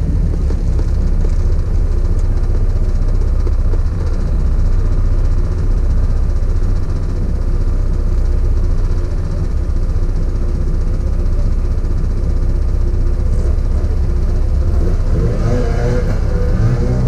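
Idling engine of an MGB GT, a steady low running sound heard close up from the bonnet. Near the end, wavering higher tones come in over it.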